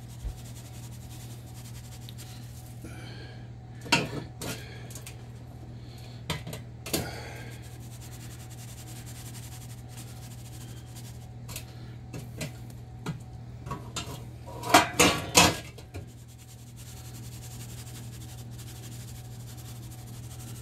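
Scattered clinks and knocks of a wire roasting rack in an enamel roasting pan as a raw pork roast is handled and turned, with a quick run of louder clatters about three-quarters of the way through. A steady low hum runs underneath.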